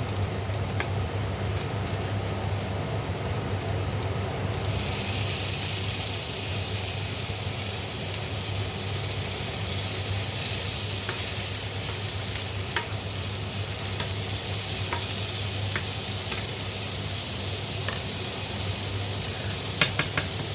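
Butter and garlic sizzling in a frying pan. About four seconds in, the sizzle suddenly gets louder and brighter as the shrimp go into the hot butter, and it keeps frying steadily while being stirred, with a few sharp clicks of the utensil against the pan.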